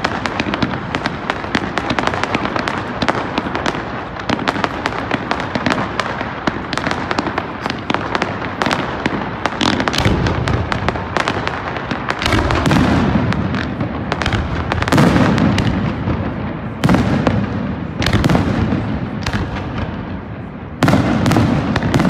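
Aerial fireworks display: a dense run of crackling and popping, then from about halfway heavier shell bursts booming every second or two over continued crackle.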